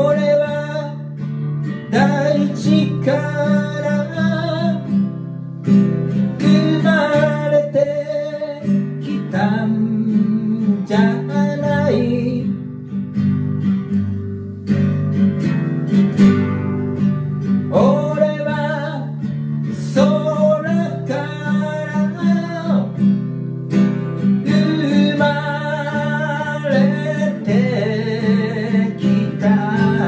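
A man singing a folk song to his own strummed acoustic guitar, the strumming keeping a steady beat, with a break of a few seconds in the singing a little before the middle where only the guitar plays.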